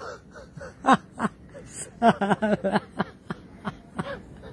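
A man laughing in a string of short chuckles, coming quicker about two seconds in.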